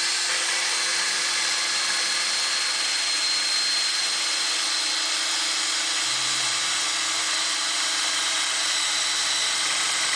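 Power drill running steadily at constant speed, boring an angled pocket hole into a wooden frame piece through a pocket-hole jig's guide with a stepped bit.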